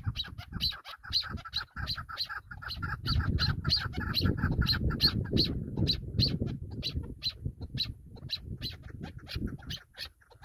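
Chukar partridge giving its rapid, rhythmic chuk-chuk rallying call, about four notes a second, slowing toward the end. A low rumble runs underneath, loudest in the middle.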